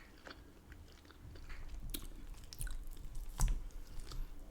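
A person chewing food close to the microphone, with scattered small wet clicks and smacks and one sharper click about three and a half seconds in.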